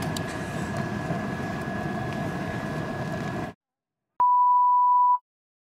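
Steady rush of the river, which cuts out abruptly to dead silence where the camera shut off unexpectedly; about half a second later a single steady electronic beep sounds for about a second, then silence.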